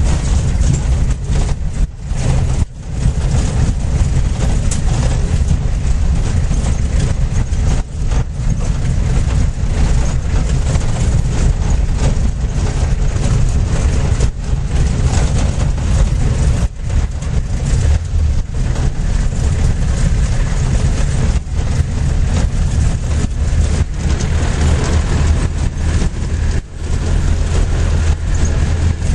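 Engine and road noise heard from inside a vehicle driving along a rough dirt road: a loud, steady low rumble with a few brief dips.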